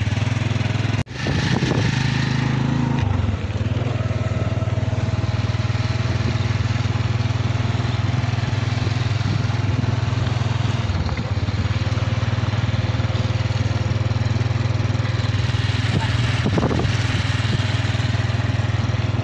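Motorcycle engine running steadily under way, with wind and road noise. The sound cuts out briefly about a second in.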